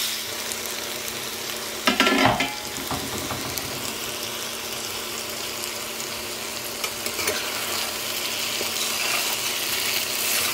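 Brinjal pieces sizzling in oil in a nonstick kadai, a steady hiss, while a spatula stirs and turns them in the pan. There is a brief louder burst of stirring about two seconds in.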